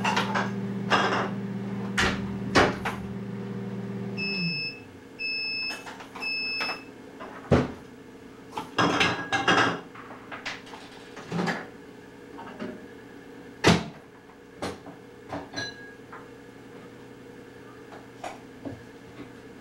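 Microwave oven running with a steady hum that winds down about four seconds in, followed by three beeps signalling that the heating has finished. After that come a series of sharp knocks and clatter.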